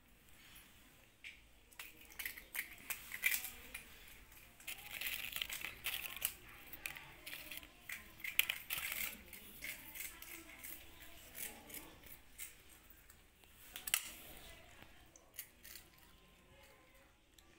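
Kittens crunching and chewing pieces of Kurkure, a crunchy corn-puff snack, in quick irregular crackles that are busiest in the first half, with one sharper crack about fourteen seconds in.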